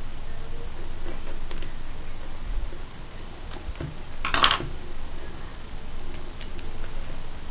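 Fingers picking and scratching at plastic wrap, making scattered small clicks, with one louder crinkle of plastic about four and a half seconds in.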